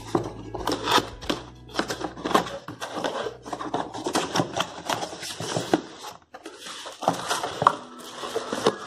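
Cardboard box being handled and opened by hand: a quick, irregular run of rustles, scrapes and taps as the flaps are pulled open and folded back.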